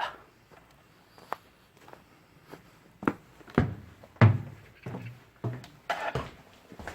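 Footsteps with several scattered knocks and thuds, spread irregularly over several seconds.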